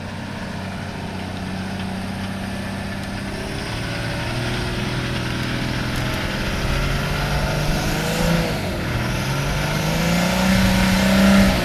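Old Toyota Land Cruiser's engine labouring under load as it tries to climb a muddy rut, its pitch holding, dipping about eight seconds in, then rising to its highest and loudest near the end.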